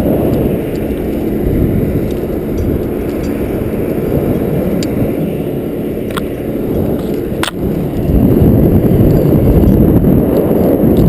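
A steady low rumble that grows louder about eight seconds in, broken by two sharp metal clinks about six and seven and a half seconds in, from the steel rigging ring and crane chain being handled.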